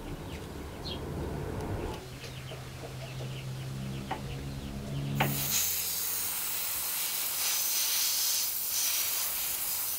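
Airbrush spraying clear coat, a steady hiss of air and paint that starts about five seconds in and holds. Before it comes a low steady hum with a couple of light clicks.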